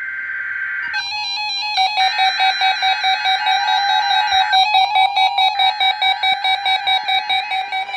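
NOAA Weather Radio SAME data header for a required weekly test: a harsh, buzzy two-tone digital squawk sent three times with short gaps. From about a second in, an electronic alarm beeps rapidly over it, about four beeps a second.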